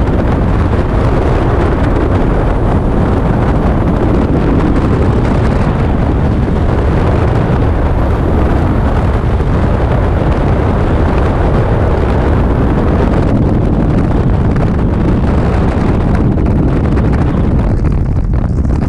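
Freefall wind rushing over a helmet-mounted camera's microphone: a loud, steady wind noise that thins a little near the end.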